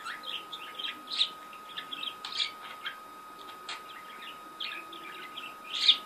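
Budgerigar chattering: a string of short chirps and warbles, loudest about a second in, near two and a half seconds, and just before the end. A faint steady high tone runs underneath.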